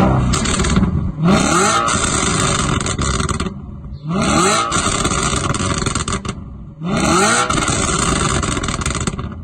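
Audi RS5 B8's 4.2-litre V8 through an Armytrix exhaust, revved hard three times. Each rev climbs quickly, holds for about two seconds, then cuts off. Sharp crackling pops come from the exhaust as each rev drops.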